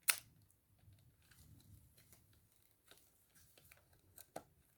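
Hands handling and fitting together parts during assembly: a sharp click at the start, scattered small clicks and rustling, and another sharp click near the end.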